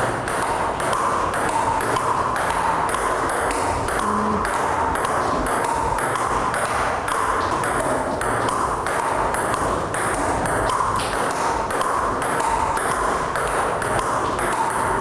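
Table tennis rally: the ball clicking off rubber-faced bats and bouncing on the table in a quick, even rhythm, about two to three clicks a second, as a child returns it with backhand and forehand strokes in turn.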